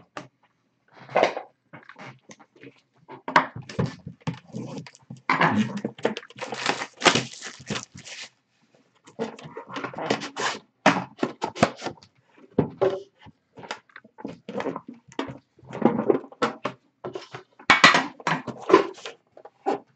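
Cardboard trading card box being handled and opened: irregular scraping, sliding and rustling of the cardboard with short knocks and taps, busiest a few seconds in and again near the end.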